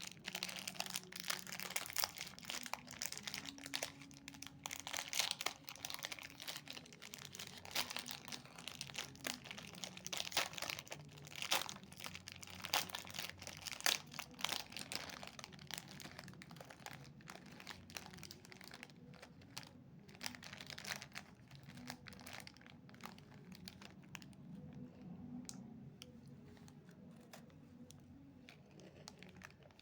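Snack wrappers crinkling and rustling as packaging is handled and opened, in dense irregular crackles. It thins out and gets quieter in the last third.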